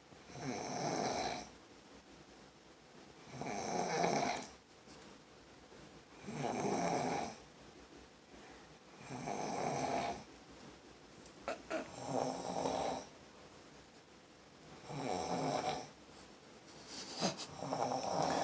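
Loud snoring: seven long snores, one about every three seconds, with quiet breathing gaps between.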